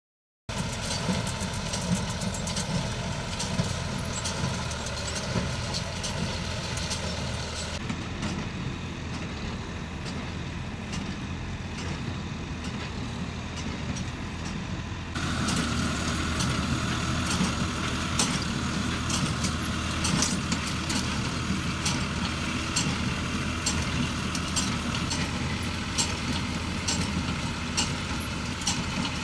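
Farm tractor engines running steadily, with small clicks over the drone; the sound changes abruptly twice, about 8 and 15 seconds in.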